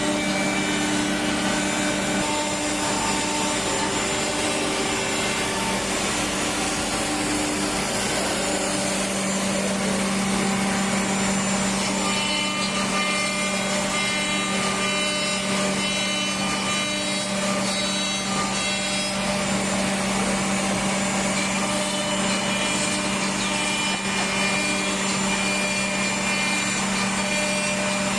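Three-head CNC mortise milling machine running, its spindles milling mortises into wood: a steady machine noise with a constant hum.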